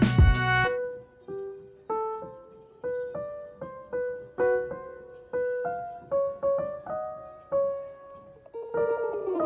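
Background music: a loud passage with a beat stops just under a second in, giving way to a soft piano melody of single notes, with a swell near the end.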